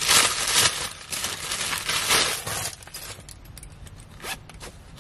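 Plastic packaging crinkling and rustling as a fabric makeup bag is pulled out of its wrapper. This is followed by quieter handling and a few small clicks as the bag's zipper is worked.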